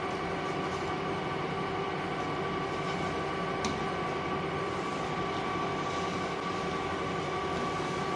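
Stainless-steel rotary bottle turntable running: a steady motor and gear hum with several fixed tones, and one light click a little under four seconds in.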